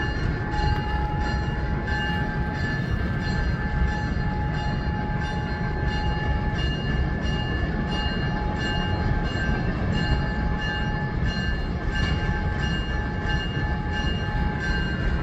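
1955 ALCO FPA-4 and 1946 ALCO S1 diesel locomotives idling while warming up: a steady low diesel rumble with a thin high whine over it that pulses on and off about twice a second.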